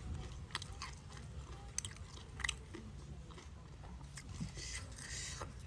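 A person chewing food close to the microphone while eating rice and side dishes by hand, with scattered short clicks from the mouth and fingers.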